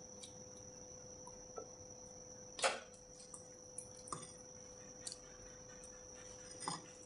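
Faint taps and soft knocks of a silicone spatula against a glass baking dish as thick masala paste is spooned and spread over yogurt-topped eggplant slices, with one louder knock about two and a half seconds in. A faint steady high tone and a low hum run underneath.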